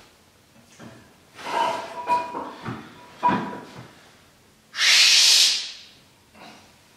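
Loaded EZ curl bar's weight plates knocking and clinking with a brief metallic ring as the bar is lifted, then a loud forceful hissing exhale, about a second long, at the effort of a heavy barbell curl.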